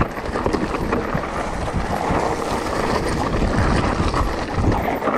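Mountain bike riding fast down a rocky dirt trail: tyres crunching over gravel and stones and the bike rattling with many small knocks, with wind buffeting the microphone.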